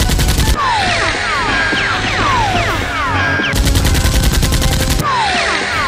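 Bursts of rapid automatic-gunfire sound effects: one ends about half a second in, and another starts past the middle and lasts about a second and a half. In between, repeated falling whistle-like tones play over action background music.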